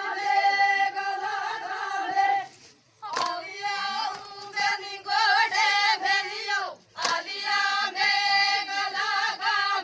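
Adivasi folk song sung unaccompanied in long, held, wavering phrases. There are three phrases with short breaks between them, and a sharp click opens the second and third phrases.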